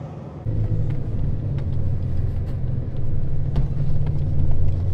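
Car on the move: a steady low engine and road rumble that steps up suddenly about half a second in, with a few faint clicks.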